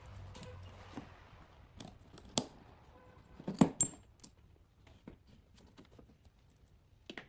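Light metallic clicks and clinks of small metal parts and hand tools as a throttle cable's carburetor-end fitting is taken off, scattered taps with the loudest cluster about three and a half seconds in.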